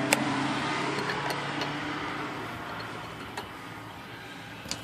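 A low steady hum with a rushing noise that swells and then fades over a few seconds, with a sharp click just after the start and a few lighter clicks later.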